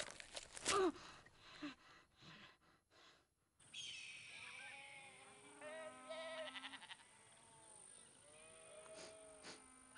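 A boy strains and grunts as he tears at tough dried meat with his teeth, followed by a few soft clicks. Then, over a steady faint high hiss, sheep bleat repeatedly in short, wavering calls.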